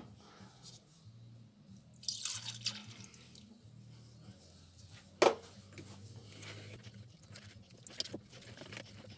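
Hardener trickling into a plastic mixing cup of acrylic primer about two seconds in, then a single sharp knock about five seconds in, and light clicks and scrapes as the mix is stirred with a metal ruler near the end.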